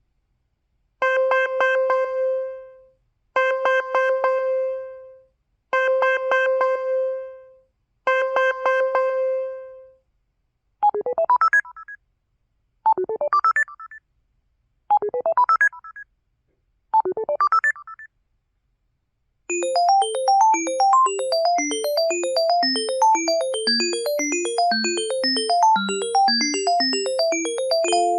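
Built-in call ringtones of an LG-SU550 (Art Touch) mobile phone, played in turn. First comes a trilling ring heard four times. Then four short bursts of quickly rising electronic notes. From about twenty seconds in, a continuous plinking electronic melody.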